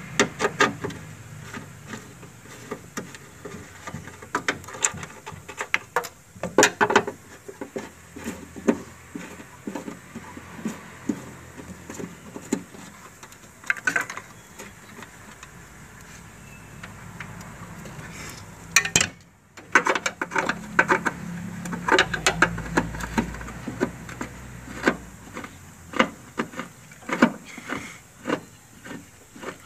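Sharp metallic clicks and clinks, scattered and then in quicker runs, as a 10 mm T-spanner works the bolts holding a wiper motor in place.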